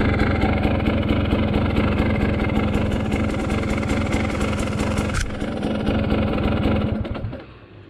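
Dirt bike engine running steadily under the rider on a wooded trail, then cutting out near the end.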